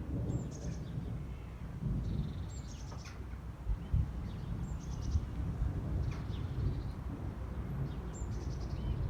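A songbird repeating a short, high call phrase four times, each a quick falling note followed by a run of rapid notes, over a steady low rumble.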